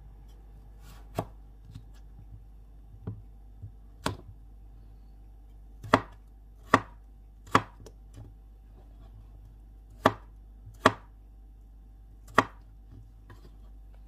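Kitchen knife cutting a peeled raw potato into chunks on a plastic cutting board: about nine separate sharp knocks as the blade goes through and meets the board, unevenly spaced, with the loudest from the middle on.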